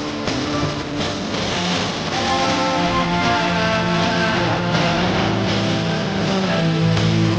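Instrumental music led by guitar, with held bass notes that change every second or two.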